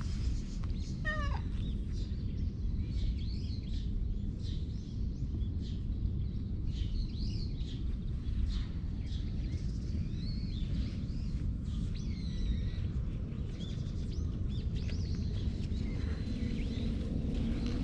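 A cat gives one short meow, falling in pitch, about a second in. Small birds chirp now and then over a steady low outdoor rumble.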